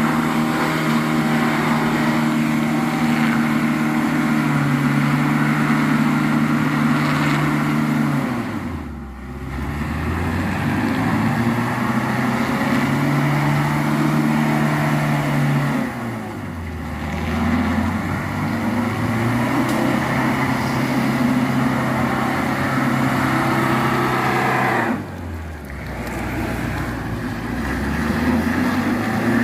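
Diesel truck engine working hard at steady revs on a climb. Three times its note drops sharply and then climbs back up.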